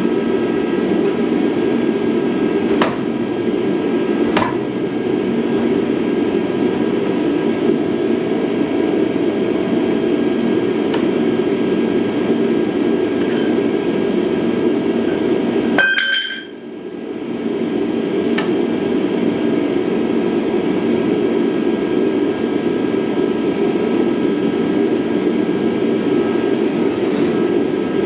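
Hydraulic forging press running with a steady machine hum and roar while a red-hot steel bar is squeezed between its dies, with a few light metallic clinks of the steel and tooling. The noise dips out briefly about halfway through, then returns.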